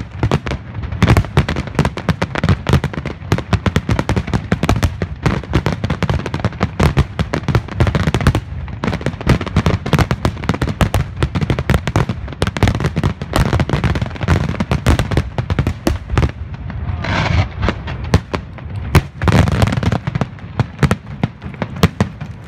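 Aerial fireworks in a final barrage: rapid, overlapping shell bursts and crackle, one on top of another with no let-up.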